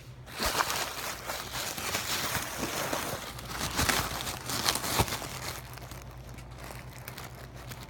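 Paper fast-food packaging being handled and crumpled, with dense crinkling for about five seconds before it settles into quieter rustling.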